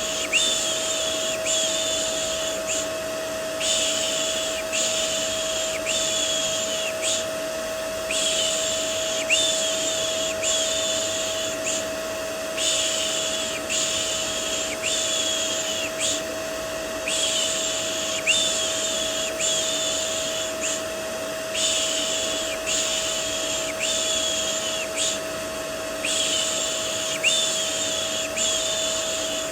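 Rhythmic 'shh' shushing, about a second per shush, in groups of three or four with short pauses between, over the steady hum and hiss of a vacuum cleaner: a looped baby-soothing white-noise mix.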